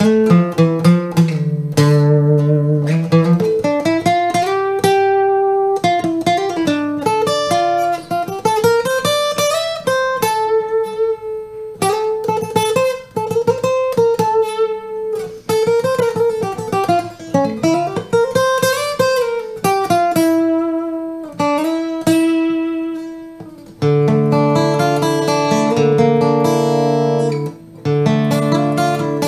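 Emerald X20 carbon-fibre acoustic guitar played fingerstyle. It plays a melodic line of plucked notes, several of which slide up and down in pitch, then turns to fuller ringing chords over the last few seconds.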